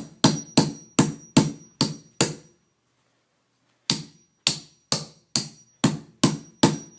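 Sharp plastic knocks, about two or three a second, in two runs with a pause in the middle: a stuck piece being knocked back into a Rubik's cube during reassembly.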